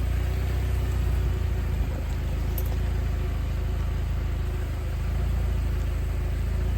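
Jeep engine idling with a steady low rumble while the Jeep creeps down an embankment on the brakes, with no throttle.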